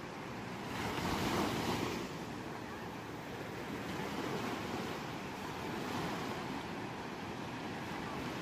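Ocean surf: waves breaking and washing ashore, a louder wave about a second in followed by gentler surges.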